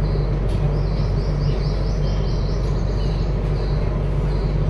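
A diesel generator running steadily with a low hum, while birds chirp over it in short high notes, including a quick run of notes about a second in.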